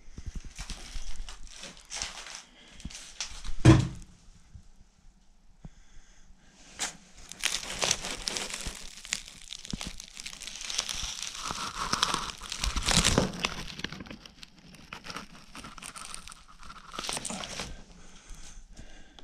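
Loose debris crunching and crinkling in irregular bursts, thickest in the middle stretch, with one sharp knock about four seconds in.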